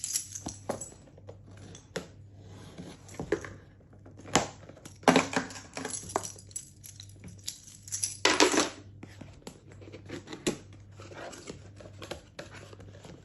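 Cardboard and paper packaging being torn open and handled: scattered sharp clicks and taps, with longer tearing, rustling bursts about five seconds and eight seconds in, over a faint steady low hum.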